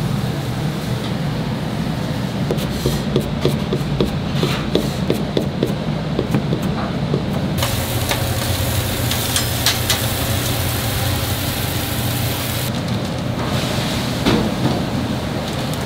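Commercial kitchen work: a steady low hum with scattered light clicks and taps of utensils. A loud hiss starts suddenly about seven and a half seconds in and cuts off about five seconds later.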